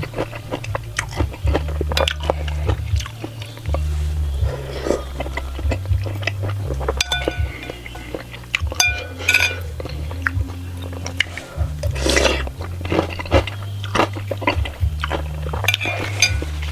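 Close-miked eating: a spoon clinking against a bowl of bakso soup and chewing, with many short clicks and a few brief ringing clinks. Background music with a steady bass line plays underneath.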